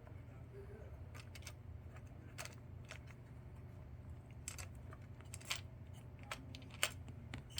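Plastic fidget toy being handled: a dozen or so irregular small clicks and snaps, the loudest about two-thirds of the way through and near the end, over a steady low hum.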